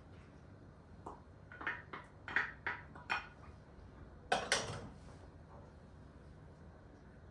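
Kitchenware being handled: a quick run of light clinks and taps of utensils against dishes, then two louder knocks close together.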